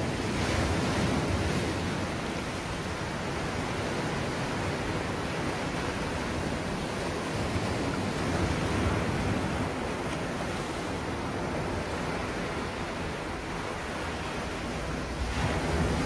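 Sea waves breaking on a rocky shore and washing back over the rocks: a continuous rush of surf that swells as waves break about a second in, again around nine seconds, and near the end.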